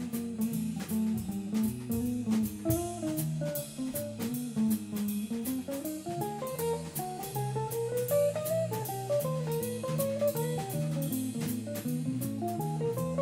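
Jazz combo of guitar, bass guitar and drum kit playing in swing time. A single-note guitar line climbs and falls over a stepping bass line, with steady cymbal strokes on every beat.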